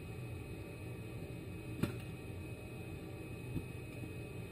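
A screwdriver turns a screw into an outboard engine carburetor body over a steady low background hum, with one sharp click about two seconds in and a fainter one later.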